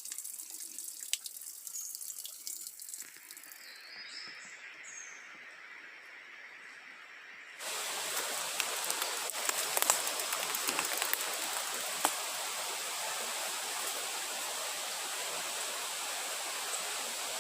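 Running, trickling water; about seven and a half seconds in it changes abruptly to a louder, steady rush of water.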